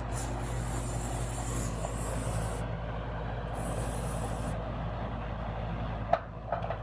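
Outdoor air-conditioning condensing unit running with a steady hum, as gauge hoses are connected to it. Two short high hisses come in the first half, and a couple of light clicks near the end.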